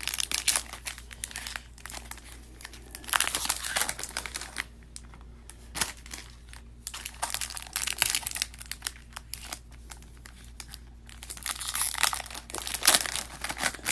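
Plastic packaging crinkling and tearing in irregular bursts as a box of sports trading cards is unwrapped and the cards are handled.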